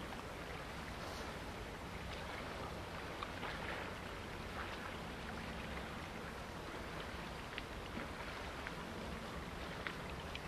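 Steady lough-shore ambience: small waves lapping at the water's edge with wind noise, and scattered faint ticks and splashes.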